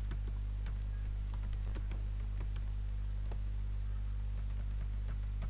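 Typing on a computer keyboard: irregular keystrokes, a few a second, over a steady low electrical hum.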